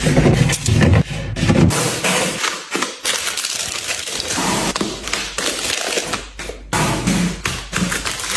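Items being handled and put away: taps and knocks of containers set down, with a few seconds of rustling or hissing noise in the middle.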